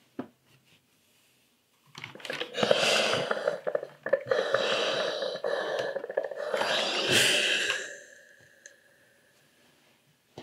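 Steam iron hissing as it presses a seam over a knit sleeve, starting about two seconds in with two stronger swells of hiss, then fading out about two seconds before the end.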